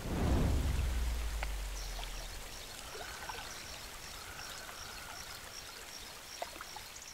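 Rushing mountain stream, a steady wash of water, opening with a deep low boom that fades away over about two seconds. Faint high chirps repeat evenly in the background.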